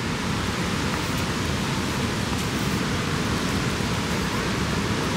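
Wind blowing across the microphone: a steady rushing hiss with a low, unsteady buffeting beneath it.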